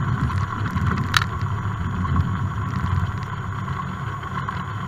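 Cessna light aircraft's piston engine and propeller droning steadily, heard inside the cabin, with one sharp click about a second in.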